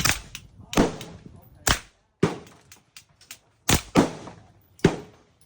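A series of about seven sharp cracks at uneven intervals, two of them in quick succession about four seconds in, with a few faint clicks between them.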